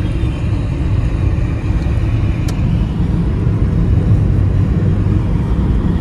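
Steady low rumble of a moving vehicle.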